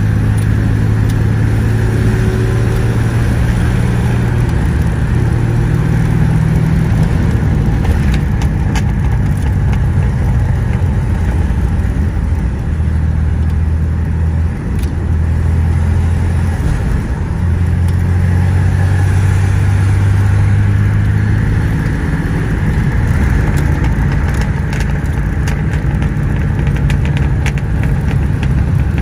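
Engine drone and road noise from inside the cabin of a vintage car being driven: a steady low hum that shifts up and down in pitch several times as the speed changes, with a few faint clicks and rattles.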